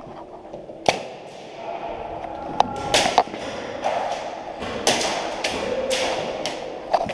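Airsoft game play: scattered sharp cracks and knocks, about eight spread through the span, which fit shots and BBs striking plywood walls. Under them is a rustling shuffle of movement through the middle.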